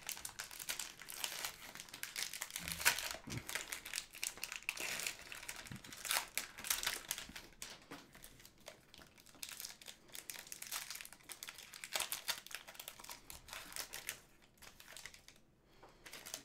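Foil wrapper of a trading-card pack crinkling and crackling as it is torn open and handled, a busy run of crackles that dies away shortly before the end.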